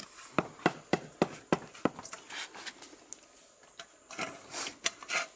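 A hollow green bamboo tube, being filled with seasoned fish, knocked on concrete about six times in quick succession, roughly three knocks a second, followed by softer scraping and handling noises.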